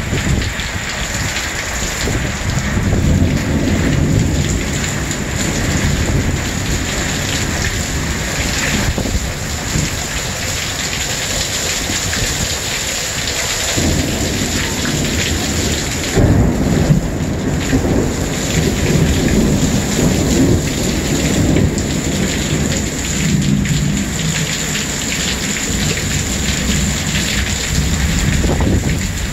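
Torrential thunderstorm rain hissing steadily, with thunder rumbling low and long, heaviest a few seconds in and again from about sixteen seconds.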